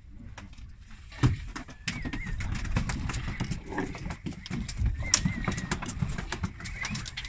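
Low, uneven rumble with many irregular clicks and knocks, the loudest knock about a second in, and two brief warbling tones.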